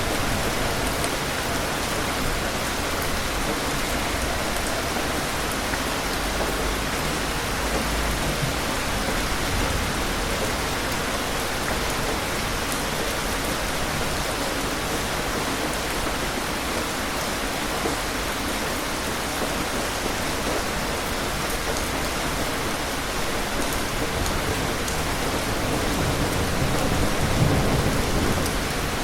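Steady rain falling, with low rumbles of distant thunder: one about a quarter of the way through, and a longer swelling rumble near the end.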